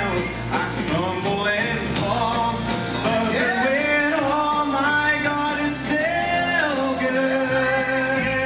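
Live worship song: a man and a woman singing, backed by strummed acoustic guitar and electric bass, with long held sung notes in the second half.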